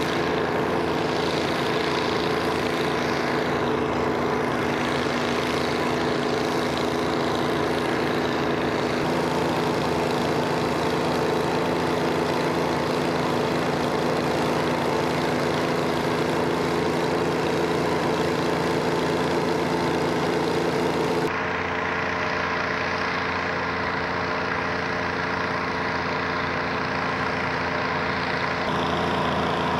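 Twin six-cylinder Detroit Diesel 71-series two-stroke diesel engines of an 18-ton Chamberlain tractor running steadily under load while pulling a wide seeder. The engine tone changes abruptly about two-thirds of the way through, and again near the end.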